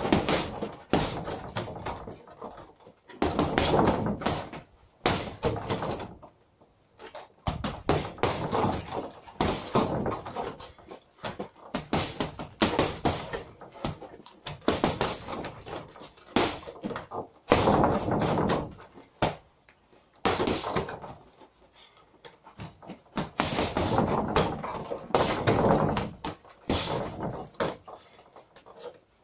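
Boxing gloves punching a hanging heavy bag: flurries of rapid thuds lasting a few seconds each, broken by short pauses between combinations.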